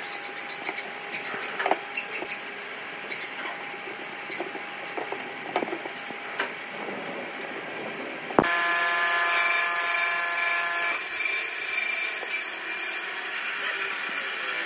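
Light clicks and scrapes of glue being spread with a wooden stick and glued wooden segment rings being set in place and handled. About eight seconds in, the sound cuts sharply to a louder hiss with several steady held tones, lasting a few seconds, that the workbench scene does not account for.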